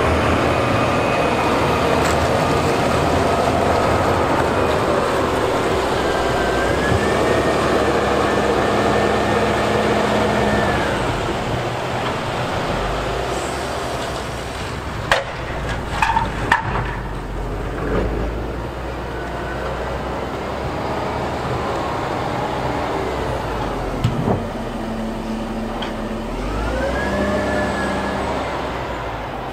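Volvo wheel loader working in snow, its diesel engine running steadily under load with a whine that rises and falls twice as it revs. A few sharp clanks come about halfway through and again later, from the machine or its snow plow.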